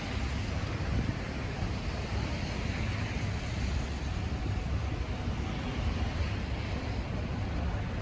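Steady wind blowing across the phone's microphone, with a low, even rush of street traffic noise.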